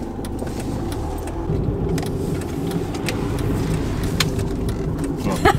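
Mercedes E 220 CDI (W211) diesel heard from inside the cabin while driving: a steady low engine and road rumble, getting slightly louder about a second and a half in, with a few light clicks or jingles.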